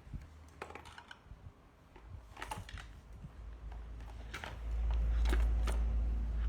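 Mechanical keyboard keys clicking in short, irregular clusters of keystrokes, with pauses between. A low rumble swells about two-thirds of the way in and is the loudest sound.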